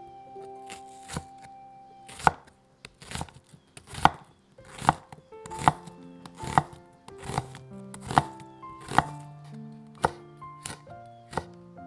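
Chef's knife slicing an onion and then green chili peppers on a wooden cutting board, each stroke ending in a sharp knock of the blade on the board, a little more than one a second. Soft background music runs underneath.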